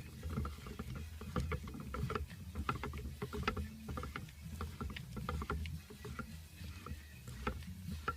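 Irregular light metallic clicks and knocks from the lathe's apron gear and shaft being worked, over a low steady hum.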